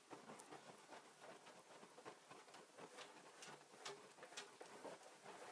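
Very faint, irregular crackling and ticking of corrugated cardboard soaked in used motor oil burning steadily.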